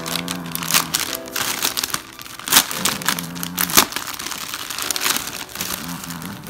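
Clear plastic packaging crinkling in irregular bursts as hands pull a cloth item out of it, over light background music with a simple repeating melody.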